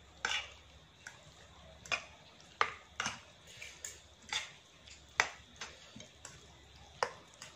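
Two metal forks clinking and scraping against a ceramic plate while noodles are stirred and lifted: about a dozen sharp, irregular clicks.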